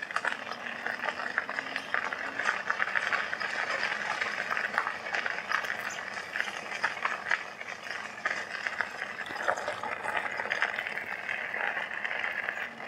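E-bike tyres rolling over a gravel trail at a controlled speed: a steady crunching crackle full of small clicks, with some rattle from the bike.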